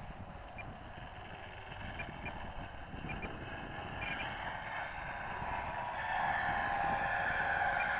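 E-flite Carbon-Z Cub radio-control airplane in flight, a droning engine sound with slowly drifting pitch that grows louder from about halfway through as the plane comes closer. Wind rumbles on the microphone underneath.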